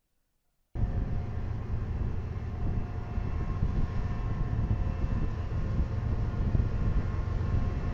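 BNSF diesel-electric locomotives running as they roll past: a steady low engine rumble with a steady whine over it, starting abruptly about a second in.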